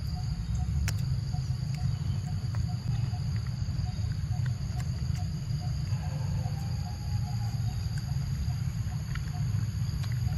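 Outdoor insect chorus: a steady high thin buzz with a faint regular chirp about three times a second, over a louder steady low rumble. A few faint clicks are scattered through it.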